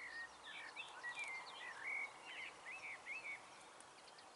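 A songbird singing a quick run of chirping, warbling notes for about three seconds, then stopping, over a faint steady outdoor hiss.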